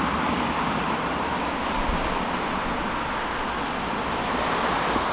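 Steady road traffic noise, an even hiss of passing cars with no single event standing out.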